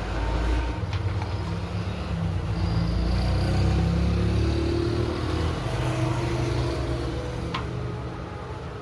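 A motor vehicle passing by: a low engine rumble that swells to its loudest midway and then fades, with a couple of faint clicks.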